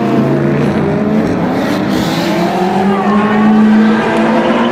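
High-performance sports car engines running at speed, the engine note sliding up and down as they rev and accelerate, loudest a little past the middle.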